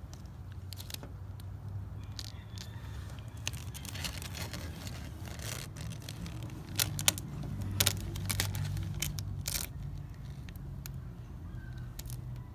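Transfer tape being peeled slowly off adhesive emblem letters on a truck tailgate: scattered crackling and tearing, loudest about seven to eight seconds in, over a low steady hum.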